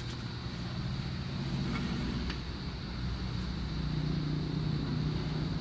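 A motor engine running with a low, steady drone that grows louder about halfway through, with a few faint clicks.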